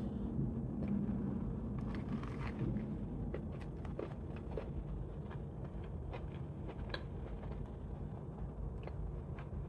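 Chewing a bite of crispy fried chicken sandwich: a run of small, irregular crunches and crackles over a low steady hum.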